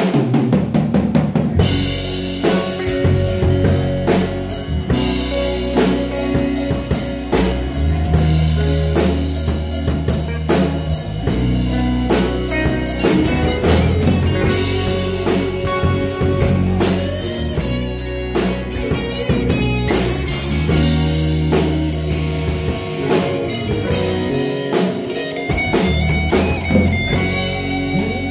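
Live rock band playing: a drum kit keeps a steady beat under electric and acoustic guitars.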